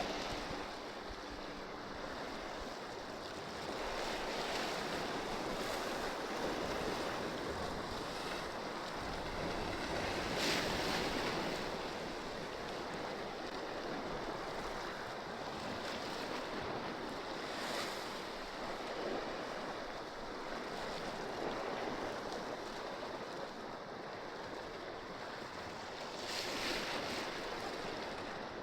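Sea waves washing against shore rocks, swelling and easing every several seconds.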